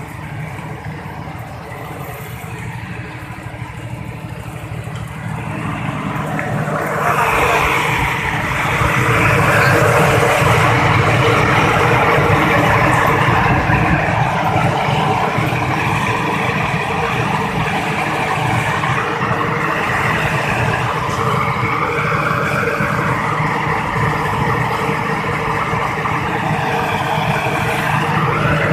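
The turbocharged Nissan diesel engine of a 125 kVA generator set running at a steady speed. It grows louder between about five and ten seconds in, then holds, heard through the open door of its soundproof canopy.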